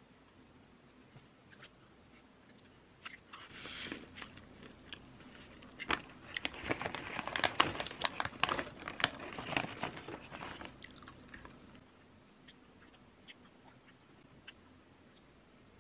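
Crunchy crumbling of chocolate cookie being crushed by hand into a plastic cup of ice cream, a dense crackling that lasts about four seconds in the middle, with scattered light clicks before and after.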